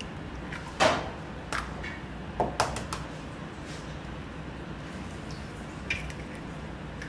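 Eggs knocked and cracked against the rim of a stainless steel mixer bowl: a few sharp knocks, the loudest about a second in, over a steady low hum.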